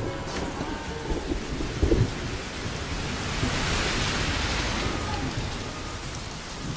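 Heavy rain pouring down onto a street, with thunder rumbling and a louder low thump about two seconds in.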